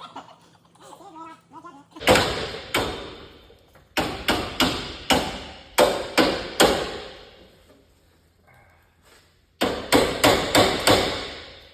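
Hammer blows on metal hardware, about fourteen strikes in four quick bursts of two to five, each ringing briefly.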